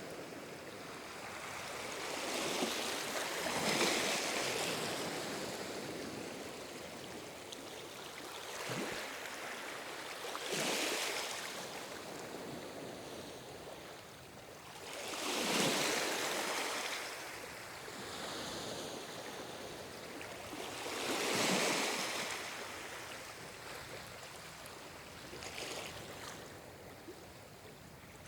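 Calm ocean waves washing in, a swell of surf every five to six seconds, four big ones and a smaller one near the end, over a steady hiss of water.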